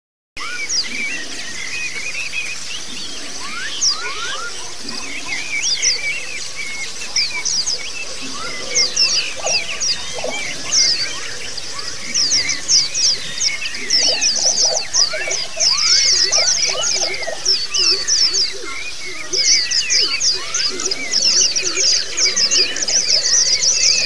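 Pleci (white-eye) song recording: a dense chorus of rapid, high chirps and twittering trills, in the 'ngalas and ngerol' style of continuous forest-chirping and rolling song. It starts abruptly just after the beginning and grows busier about halfway through.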